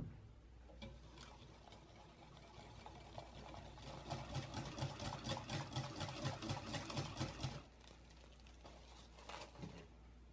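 Wire whisk beating thick custard cream in a glass bowl, rhythmic strokes about four a second that grow louder and stop suddenly about seven and a half seconds in. A sharp click comes right at the start.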